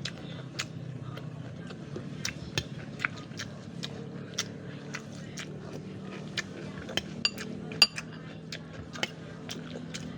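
Cutlery clinking and tapping against a plate while pempek is cut and eaten: many sharp, irregular clinks, the loudest a little before the end.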